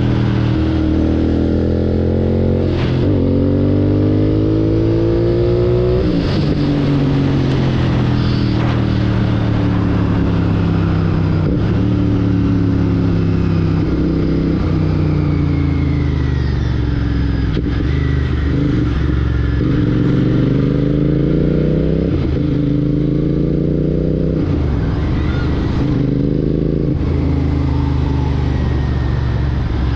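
Royal Enfield Continental GT 650's parallel-twin engine running through a Red Rooster Performance aftermarket exhaust on the move. Revs climb with two gear changes in the first six seconds, then fall slowly for about twelve seconds as the bike rolls off, before it pulls up through the gears again with shifts around 22 and 27 seconds.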